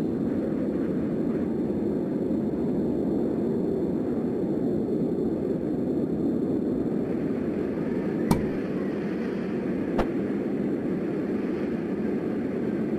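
A steady low rumbling drone from the soundtrack, with two sharp clicks, one about eight seconds in and another about a second and a half later.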